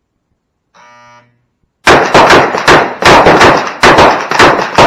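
A shot timer's start beep, a steady buzzing tone for about half a second, then a pistol fired in rapid succession at bowling pins, about nine shots in three seconds.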